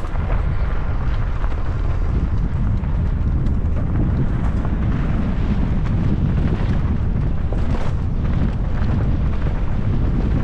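Wind buffeting the microphone of a mountain bike rider descending a rocky trail, with steady tyre rumble and short knocks and rattles from the bike over rocks.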